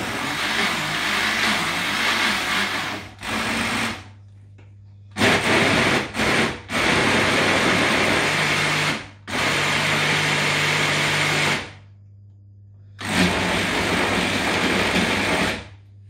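Electric countertop blender running in runs of a few seconds, stopping and restarting several times, as it mixes a thick cornmeal cake batter.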